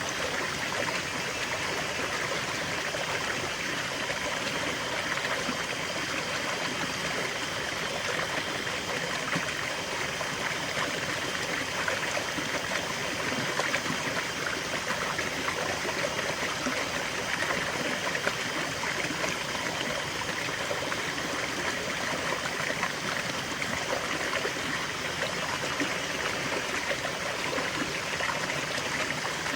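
River water flowing and splashing over rocks, a steady rushing babble with fine trickling detail.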